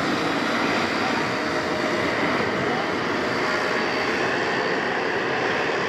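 Boeing 747-400 freighter's four jet engines during landing, a steady rushing noise that holds an even level as the jet flares and touches down.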